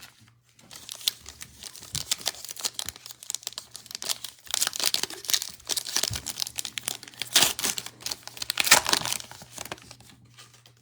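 A trading card pack's wrapper being torn open and crinkled by hand, a dense run of crackling that grows louder in the second half and dies away near the end.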